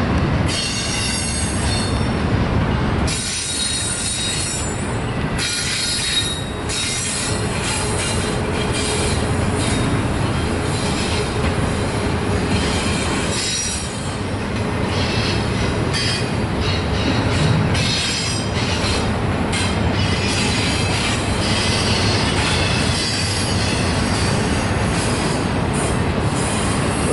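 Double-stack intermodal train's well cars rolling steadily past, a continuous rumble of wheels on rail with thin high-pitched squeals coming and going.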